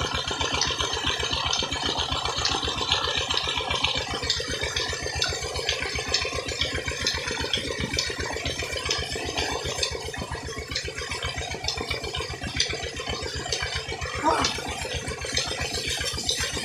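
Tubewell pump engine running steadily with a fast, even beat, and a heavy stream of water gushing from the outlet pipe and splashing onto a woven string bed.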